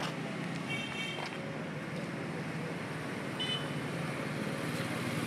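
A motor vehicle engine running on the street, a steady low rumble, with two brief high-pitched tones, one about a second in and another past the middle.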